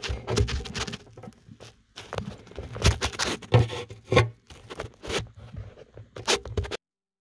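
A phone scraping and knocking against the inside of a Harmony Stella H6131 acoustic guitar's hollow body as it is moved around through the sound hole: irregular rubs, scrapes and taps. The sound cuts off suddenly near the end.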